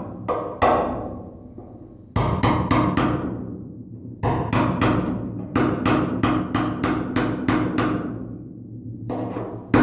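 Hammer striking a punch held against the sheet-steel trunk lid: runs of sharp metallic taps, each ringing briefly in the panel, with short pauses between the runs. The punch is dimpling a crater around a rust hole so body solder can fill it.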